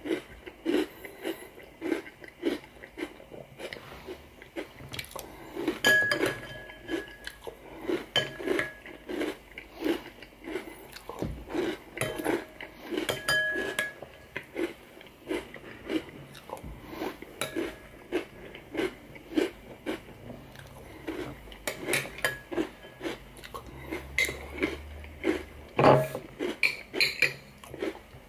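Close-up chewing and crunching of cereal in milk, mixed with a metal spoon clinking and scraping against the bowl. Short clicks and crunches come about twice a second, a few spoon strikes ring briefly, and one sharp knock near the end is the loudest.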